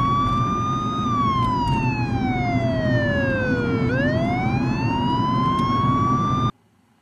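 Police car siren wailing, its pitch falling slowly and then rising again, over the low rumble of the car on the road; both cut off suddenly near the end.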